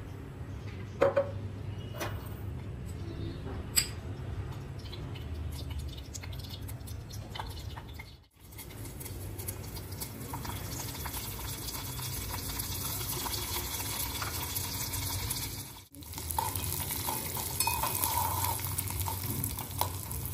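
Tadka of ghee in a small steel pot on a gas burner: a few sharp spoon-and-jar clicks at first, then the hot ghee sizzling with curry leaves in it, the hiss growing stronger in the last few seconds as a spoon stirs.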